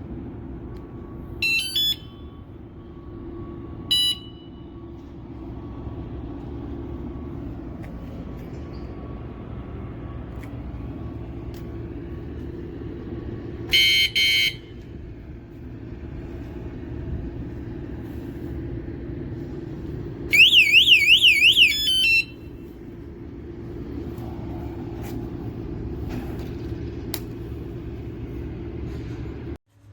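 Wireless bike alarm unit sounding its tones: a few short high electronic beeps early on and around the middle, then about two seconds of a loud, fast up-and-down warbling alarm siren, all over a steady low background hum.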